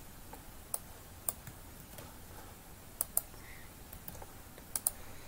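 Scattered clicks of a computer keyboard and mouse as code is selected and pasted into an editor: a few single clicks, then two quick pairs of clicks.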